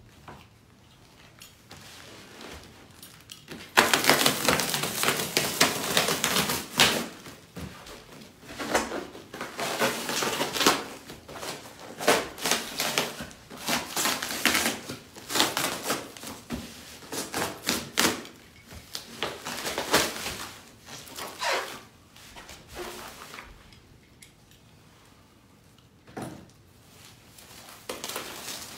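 A tape-wrapped cardboard shipping box being cut and ripped open by hand with a small blade: a long run of scraping and tearing strokes starting about four seconds in, with a lull near the end, then rustling of foam packing.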